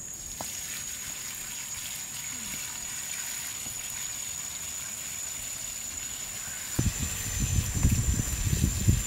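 A stream of water pouring steadily onto spiny amaranth greens in a metal basin as they are washed. About two-thirds of the way through, louder irregular low thumps and rumbling come in.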